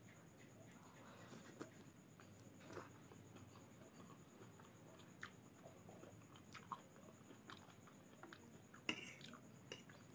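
Faint eating sounds: soft chewing of Maggi instant noodles, with small clicks of a metal fork against the plate, and one sharper click near the end.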